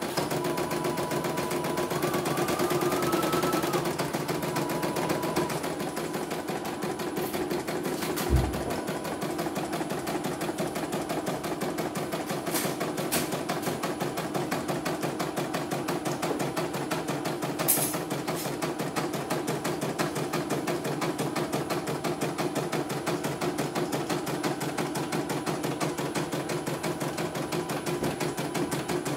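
CNY E900 computerized embroidery machine stitching, its needle working in a rapid steady rhythm as the hoop carriage steps the fabric, with a motor whine that shifts in pitch during the first few seconds. A single thump comes about eight seconds in.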